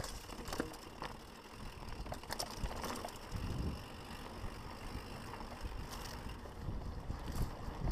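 Mountain bike rolling fast downhill on a rocky dirt singletrack: tyres running over dirt and stones, with a low rumble and scattered clicks and rattles from the bike throughout.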